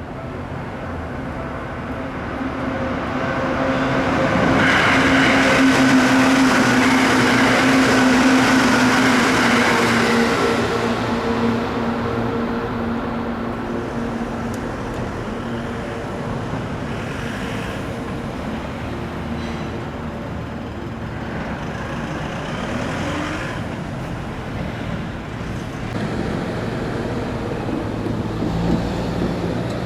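Heavy road traffic with large trucks passing; one vehicle passes loudest about four to eleven seconds in, its engine hum sinking slightly as it goes, and a smaller pass follows about twenty-two seconds in.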